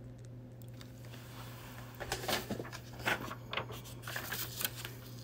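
Short scratchy scraping and crackling strokes, starting about two seconds in, as a small pointed craft tool picks and peels a paper price label off an unfinished wooden oval plaque.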